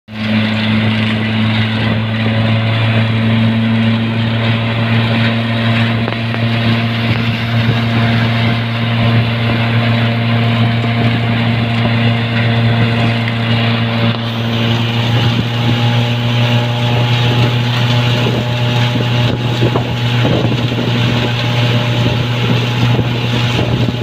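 Tractor engine running steadily under load with a strong even hum, together with the machinery of a tractor-drawn round silage baler working through corn stalks. About halfway through, a higher steady whine joins in as the baler works harder.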